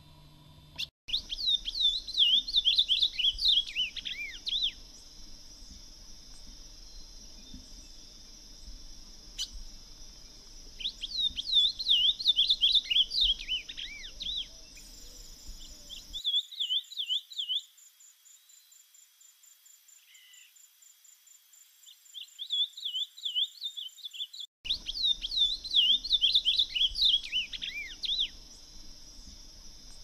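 Ultramarine grosbeak (azulão) singing: five phrases of quick, slurred whistled notes, each one to four seconds long, over a steady high insect hum. A fast pulsed insect trill runs through the middle.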